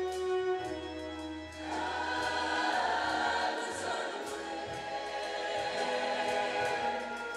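Mixed show choir of male and female voices singing in harmony. The chords are held, and the sound fills out for a couple of seconds partway through.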